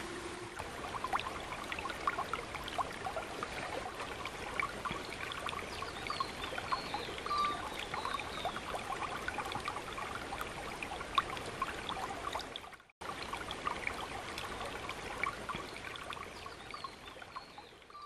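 Shallow river water babbling and trickling over rocks, a steady splashing flow. It cuts out for a moment about thirteen seconds in, then fades away at the end.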